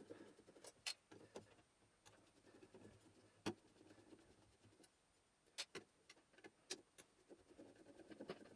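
Quiet, scattered sharp clicks and light metallic ticks of hand tools and small metal parts being handled while a vacuum cleaner motor is taken apart, about eight of them at irregular intervals.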